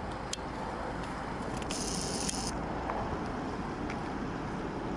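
Eurowings Airbus A319 jet airliner on final approach, its engines giving a steady distant jet noise. A short hiss breaks in about two seconds in.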